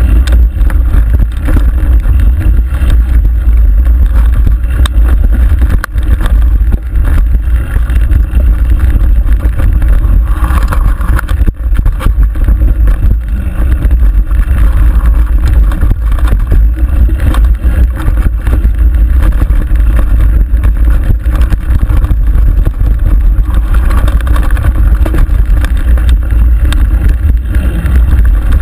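Mountain bike descending a rough dirt singletrack, recorded by a camera on the bike: constant heavy wind buffeting on the microphone, with the frame and mount rattling and knocking over bumps.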